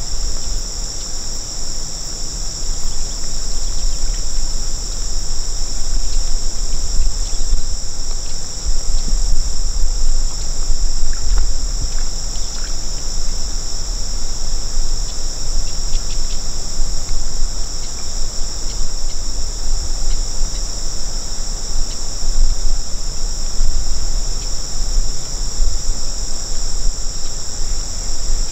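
A steady, high-pitched chorus of insects chirring without a break, with an uneven low rumble underneath.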